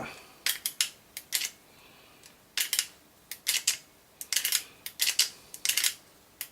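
A run of sharp, short mechanical clicks in small clusters of two or three, from the record player's metal mechanism being worked by hand.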